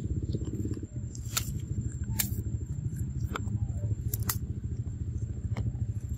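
A steady low rumble with about six sharp crackling snaps spread through it, as a macaque tears and chews green leaves; a faint, high, steady whine runs underneath.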